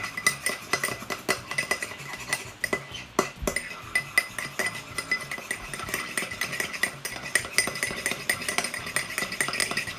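A spoon stirring and scraping around a bowl in quick, continuous clinks with a slight ring, mixing flour into a body-wash slime mixture.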